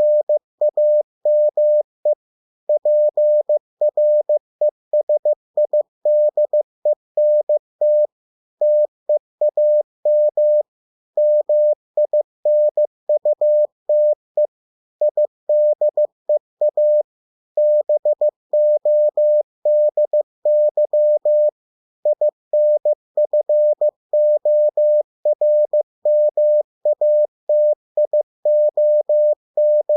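Morse code sent as a single steady beep tone, keyed on and off in dots and dashes at 15 words per minute. It spells English words, with short pauses between them.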